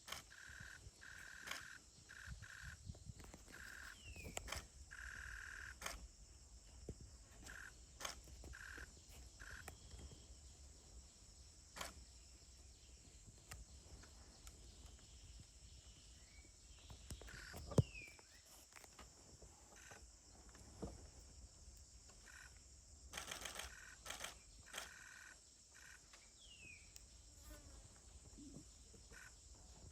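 Quiet forest ambience: insects buzzing on and off, and a bird's short falling whistle heard three times. Scattered sharp clicks, one louder snap about eighteen seconds in.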